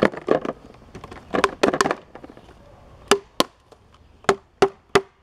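Cardboard and plastic toy packaging being handled, with quick rustling clicks. Then five sharp separate taps as small hard PVC figures are set down on a cardboard box.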